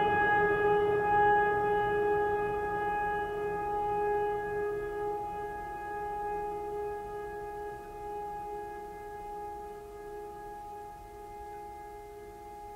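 Singing bowl ringing after being struck, several steady tones fading slowly away.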